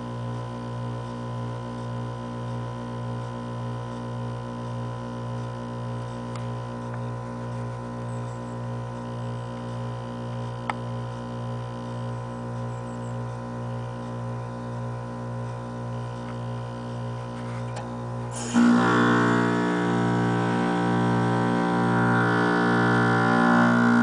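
Lennox heat pump outdoor unit humming steadily in defrost mode, with a slight pulse. About three-quarters of the way through, a much louder buzz sets in abruptly and holds for about five seconds: the condenser fan motor straining to start, which the owner puts down to a fan that needs lubrication.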